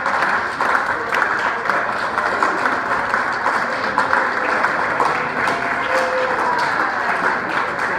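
A crowd of dancers applauding at the end of a waltz tune: dense, steady hand-clapping.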